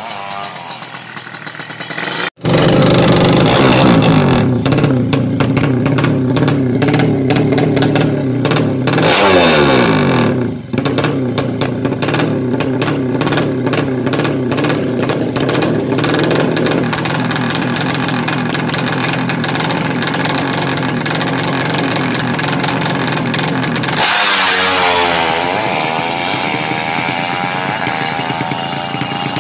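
Drag bike's 200cc horizontal-cylinder ('sleep') engine revving loud and high on an open exhaust, held for long stretches with a brief dip about ten seconds in. It opens with a short rising engine note that cuts off sharply about two seconds in. Near the end the note changes abruptly, falling and rising again.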